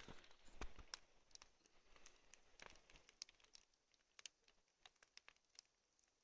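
Near silence, broken by faint, irregular clicks and crackles that grow sparser towards the end.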